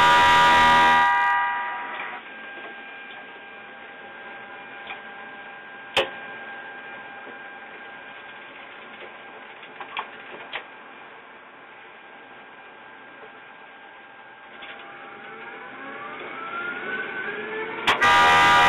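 Ride-on miniature train running on its track: a steady hum with a few sharp clicks, and a whine rising in pitch near the end. A loud horn-like tone dies away about a second in and sounds again just before the end.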